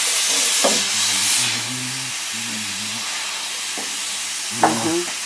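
Steady hiss of air blowing from a GEP-2 hot-air plastic welding gun fed by a compressor, heating a polyethylene weld bead; the hiss is louder for the first second and a half, then steady and quieter. A short knock about four and a half seconds in.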